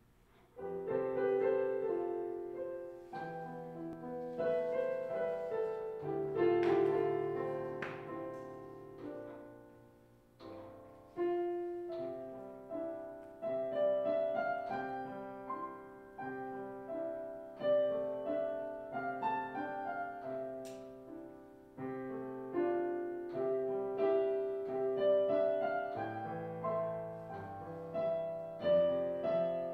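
Solo piano playing, its chords struck and ringing away between phrases; the playing begins about half a second in.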